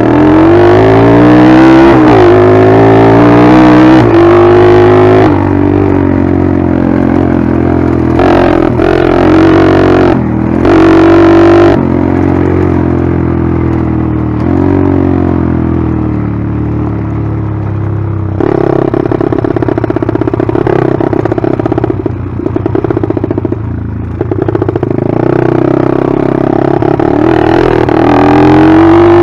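Small single-cylinder four-stroke pit bike engine under a rider, revving up through the gears, its pitch climbing and then dropping at each shift. About two-thirds of the way through it eases to a choppier, lower-throttle run, then revs up again near the end.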